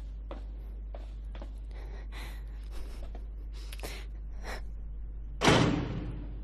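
Soft footsteps tapping on a stone floor over a steady low drone. About five and a half seconds in there is one loud heavy slam that echoes and dies away.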